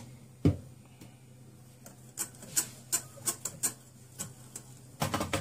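Light, irregular clicks and taps of kitchen utensils against a glass mixing bowl, with one sharp knock about half a second in and a short cluster of louder clatter near the end.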